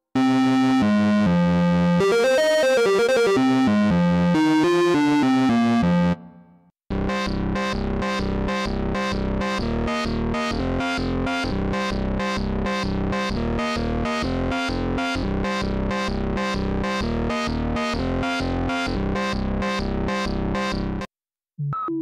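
u-he Bazille software synthesizer playing preset demos: a sustained lead sound with a moving melody for about six seconds, then after a short break a pulsing sequence of roughly three pulses a second over a low note that steps between two pitches, stopping shortly before the end.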